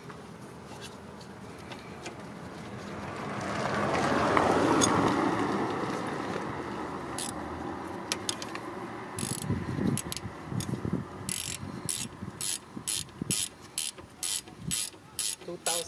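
A ratchet wrench clicking in quick, even strokes, about three clicks a second, as a rear brake caliper bolt on a 2017 Kia Sedona is turned. It starts about two-thirds of the way in. Before it, a broad rush of noise swells and fades, loudest about five seconds in.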